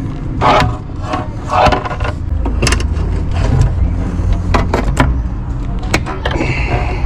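Repeated sharp clicks and knocks of a locksmith's under-the-door tool working against a door and its lever handle to open a lockout. A steady low hum comes in about two seconds in.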